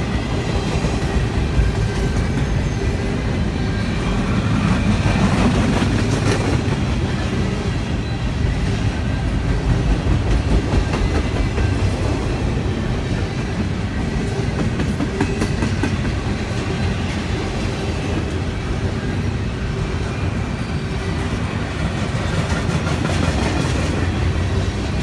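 Double-stack intermodal container cars of a freight train rolling past, with a steady rumble and clatter of steel wheels on the rails.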